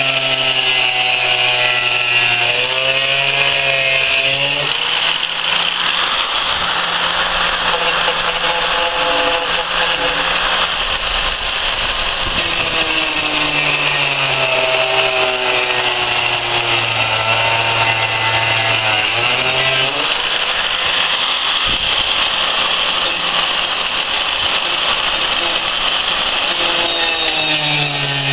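Die grinder with a thin cutting wheel cutting into a steel shovel blade: a continuous grinding hiss over the motor's pitched hum. The pitch sags as the wheel bites under load and climbs back as it eases off, several times.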